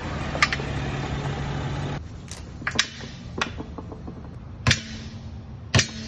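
A Mercedes sedan running and rolling slowly, with a single click. Then a quieter stretch with a string of irregular sharp knocks from the front wheel: a loose tire-pressure sensor tumbling inside the tire, the cause of the front-end rattle.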